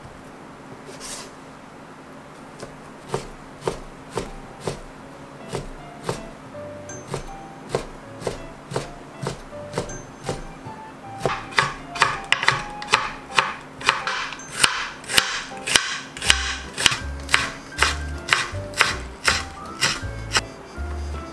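Kitchen knife chopping on a cutting board, slicing fish cake into long strips and then green onion: a regular series of sharp strikes on the board, getting faster and louder about halfway through.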